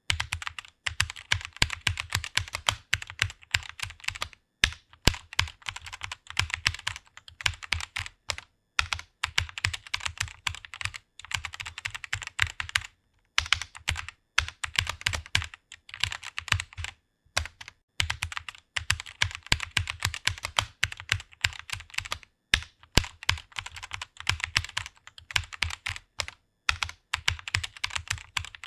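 Computer keyboard typing: a fast, steady run of keystroke clicks, broken by short pauses every few seconds.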